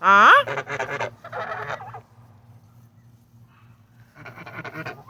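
Domestic goose honking: one loud honk rising in pitch right at the start, followed by rougher, breathier calls for a second or so, and another short rough burst near the end.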